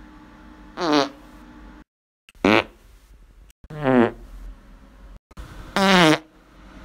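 Four separate short human farts, each a pitched blast that slides downward in pitch.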